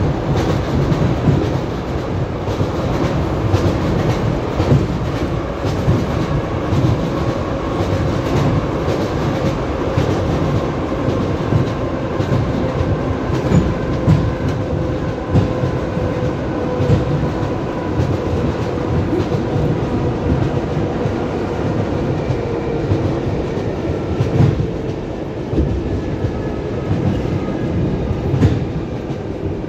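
Wheels of an ED9MK electric multiple unit clacking over rail joints at running speed, heard from inside a passenger car over a steady low rumble, with a faint steady whine underneath.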